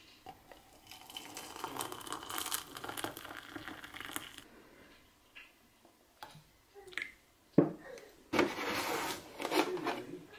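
Hot water poured from a kettle into a mug with a tea bag, a steady splashing pour lasting about four seconds. Later a sharp knock and two short splashy bursts as milk goes into the tea.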